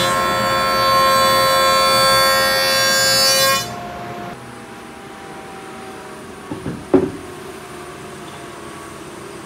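Jointer cutting a walnut slab: a loud, steady, many-toned whine that stops abruptly about three and a half seconds in as the cut ends, leaving the machine running more quietly. A few sharp knocks come about seven seconds in.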